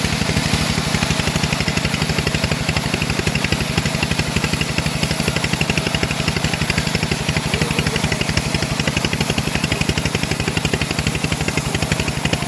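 The engine of a homemade bandsaw mill running steadily, with a rapid, even chugging that holds unchanged throughout.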